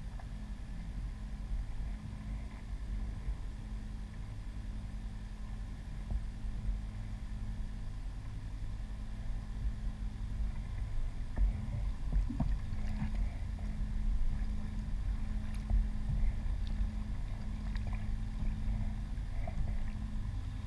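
Kayak on the water: a steady low rumble of water and wind against the hull with a faint hum, and a few light knocks and clicks in the second half.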